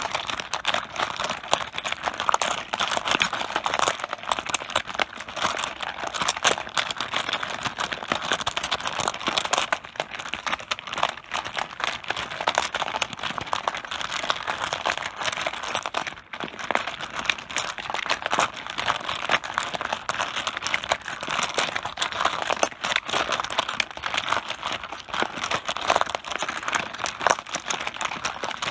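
Mahjong tiles being shuffled by hand on a tabletop: a continuous, dense clatter of tiles clicking against each other and the table, with a brief lull about sixteen seconds in.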